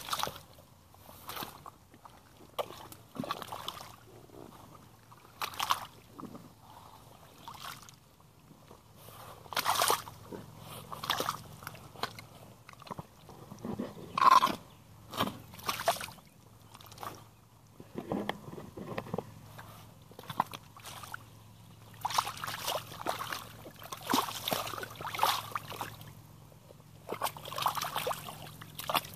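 Rubber boots tramping and stamping through a shallow mud puddle, with irregular sloshes, splashes and squelches of watery mud at each step. The splashing comes in uneven clusters, busiest near the end.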